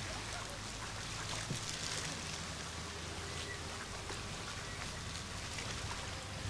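Steady outdoor ambient noise with faint scattered ticks and a low hum underneath.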